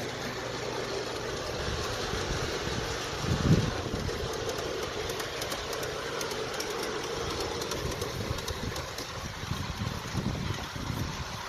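G-scale model train running on its track, its wheels clicking steadily over the rail joints. A single loud thump comes about three and a half seconds in, and low rumbling surges follow near the end.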